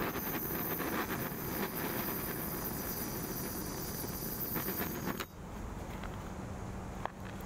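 Handheld torch flame hissing steadily as it burns on top of a wooden drink-smoker lid, then cutting off suddenly about five seconds in. A single light click follows near the end.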